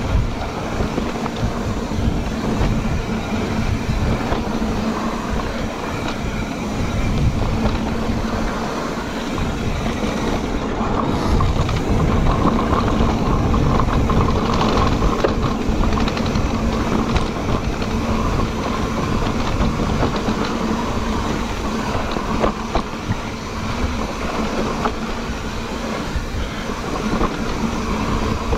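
Cannondale Moterra electric mountain bike ridden over a dirt singletrack, heard from the bike-mounted camera: steady tyre and ground rumble with rattling from the bike and wind on the microphone, under a steady hum from the electric mid-drive motor.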